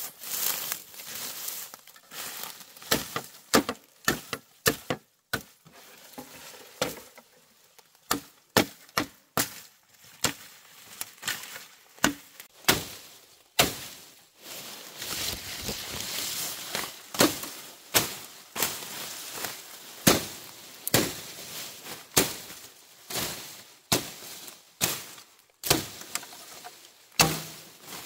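A series of sharp chopping blows struck by hand, irregular, about one or two a second, some with a brief clinking ring.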